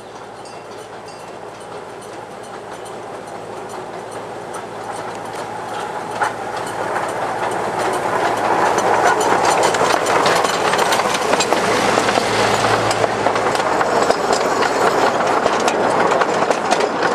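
Miniature railway train, a small locomotive hauling open passenger carriages, approaching and passing close by: the wheels click over the rail joints and the running noise grows steadily louder, loudest over the second half.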